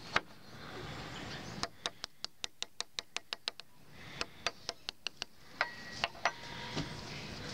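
A steel fork tapping on a metal tuna can: two quick runs of sharp metallic ticks, about six or seven a second, with a few single taps before and after. The tapping is a call to cats that food is coming.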